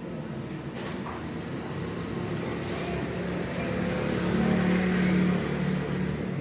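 An engine running with a steady low hum that grows louder toward the last couple of seconds, then eases slightly.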